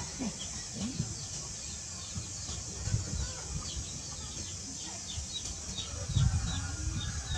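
Bird chirping in a quick series of short, falling high notes, about three a second, over a steady high hiss.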